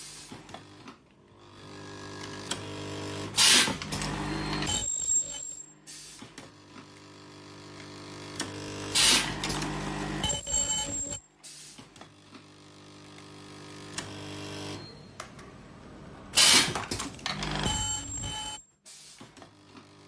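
Carbon-granule filling and ultrasonic welding machine for mask cups, cycling automatically. A pitched hum swells for a few seconds and ends in a short loud burst, three times about six to seven seconds apart. Brief high-pitched beeps come twice.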